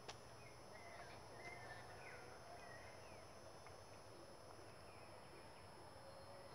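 Faint, distant birds calling over near-quiet: scattered short chirps and quick whistled slurs, with a few longer, lower held notes now and then.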